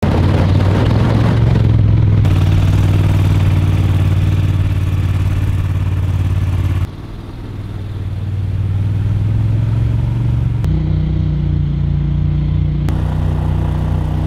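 Boat motor running steadily at speed across open water. About seven seconds in the sound drops abruptly, then builds back up over a few seconds, and near eleven seconds the engine note shifts.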